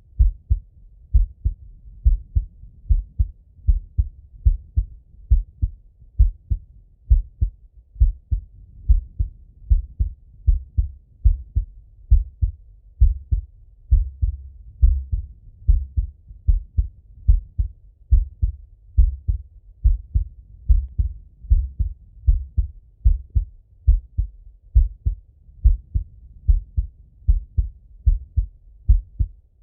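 A man's heartbeat heard through a stethoscope: a steady run of deep, muffled lub-dub double thumps.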